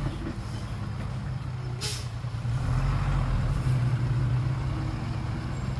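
Diesel dump truck engine running steadily at a low pitch, with one short hiss of air about two seconds in, typical of an air brake.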